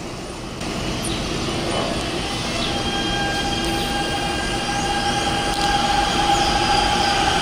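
Siemens 3000 series electric commuter train at a station platform: steady running noise under a whining electric tone from its traction equipment, with a few short rising whistles. It grows slightly louder toward the end.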